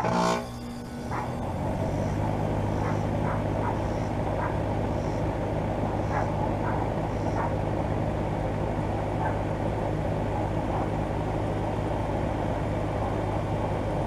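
2013 Goodman GSX13 2.5-ton air conditioner condensing unit starting up: a brief loud start right at the beginning, then its Copeland scroll compressor and condenser fan come up to speed within about a second and a half and settle into a steady low hum.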